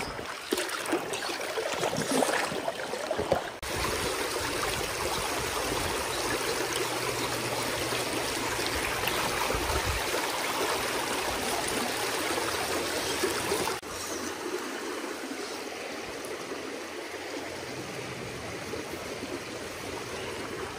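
Small shallow creek rushing steadily over a gravel and cobble riffle. The sound changes abruptly in level twice, at cuts between shots.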